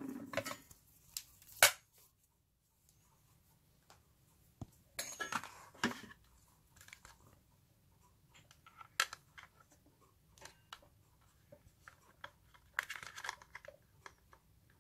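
Handling noise from the Sphero Spider-Man's hard plastic charging stand and its USB cable: scattered clicks, taps and short rustles a few seconds apart as a micro-USB plug is fitted into the port on the stand's underside.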